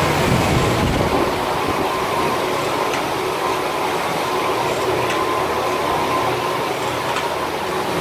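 Wanlong LXM-20 automatic stone line polishing machine running: a steady mechanical drone with a constant whine and a few faint ticks.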